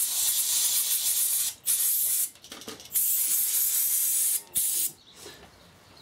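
Aerosol spray can being sprayed onto a gearbox housing part, hissing in four bursts, two long and two short.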